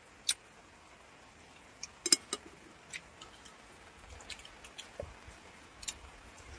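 A few scattered light clicks and taps of small items being handled, with a sharper clink that rings briefly about two seconds in.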